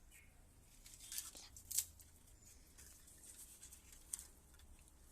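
A few faint crackles and clicks of handling noise, the loudest just under two seconds in and another about four seconds in.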